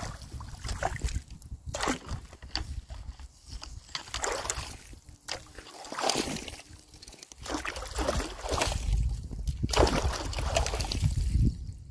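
Shallow water sloshing and splashing as a long wooden pole is jabbed and levered into a beaver dam's tangle of sticks and mud, with irregular knocks and cracks among the splashes.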